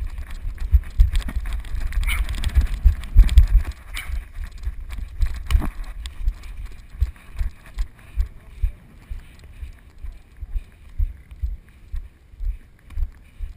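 Footsteps on grass thudding through a head-strapped GoPro in its waterproof housing: dense jolting thumps for the first few seconds, then steady walking paces about two a second.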